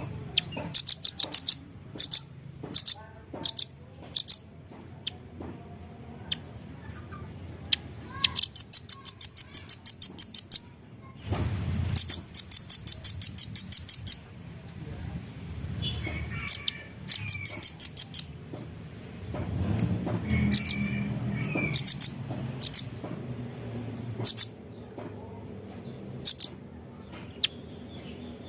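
Velvet-fronted nuthatch calling: sharp, very high chipping notes, some single and some in fast rattling runs of about two seconds. A faint low rumble sits underneath.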